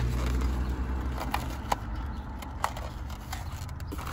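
Foam takeout containers being handled and set into a cardboard box: light knocks and rustles, with two sharper clicks about a second apart near the middle. A low steady rumble sits underneath and eases after the first second.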